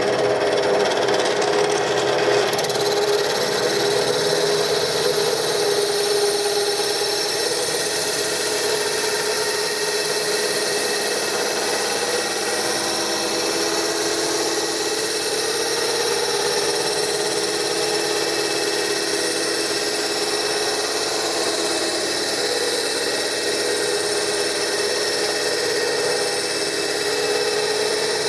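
Wood lathe running steadily while a turning tool works the spinning chestnut blank.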